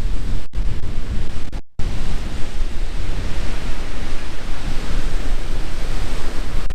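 Loud wind noise buffeting a GoPro's microphone, with ocean surf washing beneath it. The sound cuts out briefly about half a second in and again just before two seconds in.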